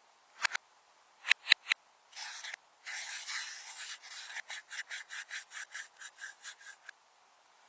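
Slime being pressed and kneaded by hand: a few sharp clicks and pops of trapped air, then a stretch of sticky rubbing, then quick regular squelches about five a second that stop near the end.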